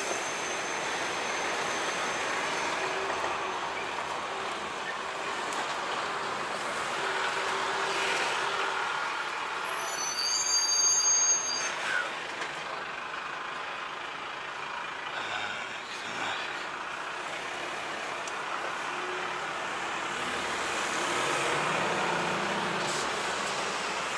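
DAF XF 106 truck with a 530 hp engine running as it manoeuvres slowly, heard from inside the cab as a steady noise. About ten seconds in there is a brief high-pitched squeal, the loudest moment.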